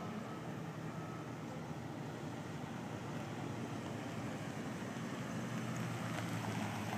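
Steady outdoor background noise with no distinct events, a faint low hum joining in about five seconds in.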